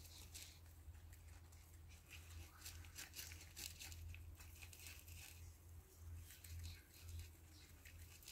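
A dwarf hamster nibbling a piece of cucumber, making faint, irregular small crunching clicks over a steady low hum.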